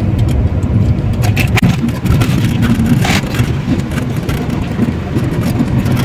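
Car driving on a wet road, heard from inside the cabin: a steady low engine and tyre rumble with scattered clicks and knocks.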